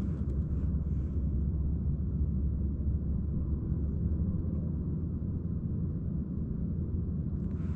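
Wind rumbling steadily on the microphone outdoors on the ice, with a few faint clicks in the first second.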